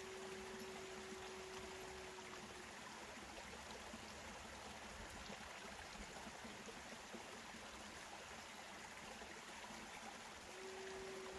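Native American flute holding one low steady note for the first two and a half seconds, then stopping, with the same note returning about a second before the end. An even, steady hiss runs underneath.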